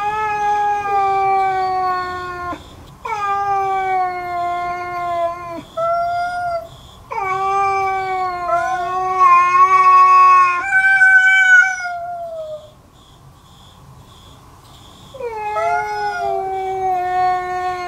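Cats yowling at each other in a territorial standoff that threatens a fight: a series of long, low, drawn-out yowls, each slowly falling in pitch, with a higher-pitched call about eleven seconds in. A short pause follows, then another yowl near the end.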